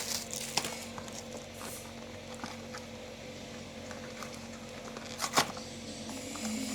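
Small plastic toys and packaging being handled: light rustling with scattered small clicks, and one sharper click about five seconds in.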